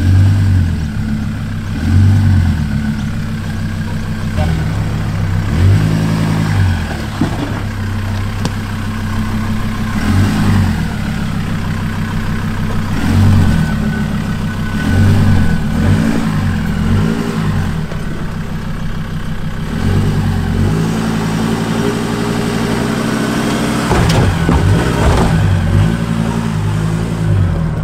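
A Mazda BT-50 ute's engine running at low revs and revving up in short bursts every second or two as it crawls over rocks in a deep rut.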